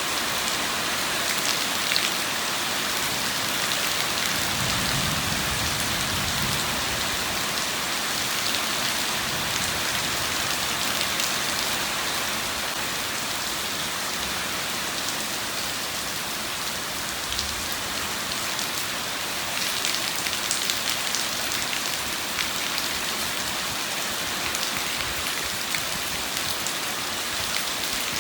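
Steady rain falling, with individual drops ticking sharply now and then, and a brief low rumble about five seconds in.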